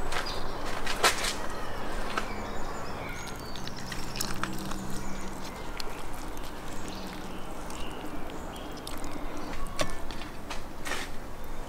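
Knife working through a salt-baked whole salmon: a few sharp clicks and taps of the blade against the tray and plate, with soft scraping, over a steady outdoor background.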